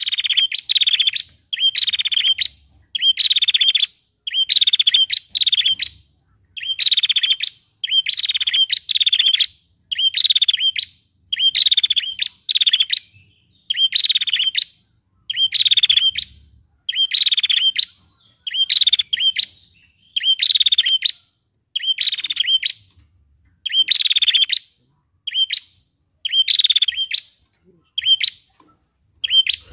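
Female prinia (prenjak) calling over and over: about one short, rasping, buzzy trill a second, with a few brief pauses.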